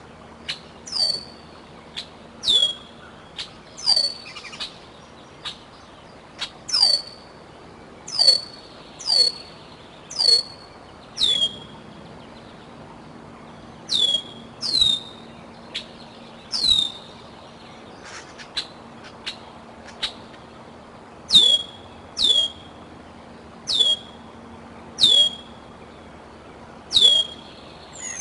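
Juvenile bald eagle calling over and over, a thin high whistle that drops sharply in pitch, about one call a second. Short faint clicks fall between the calls.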